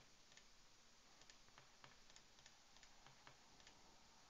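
A dozen or so faint computer mouse clicks at irregular intervals, over near silence: points being picked on screen.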